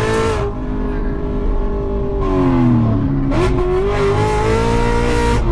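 Cammed C7 Corvette's 6.2-litre V8 running hard at high revs; the engine note falls about two seconds in, then climbs sharply again just after three seconds in and keeps rising.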